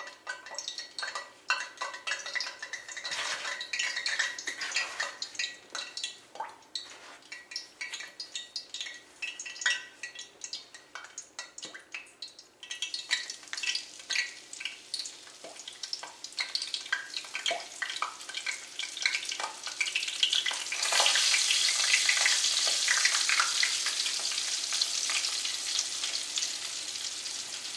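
Flour-coated chicken frying in hot shortening in a cast iron skillet: the fat crackles and pops, then about 21 seconds in swells into a loud, steady sizzle as more pieces go in.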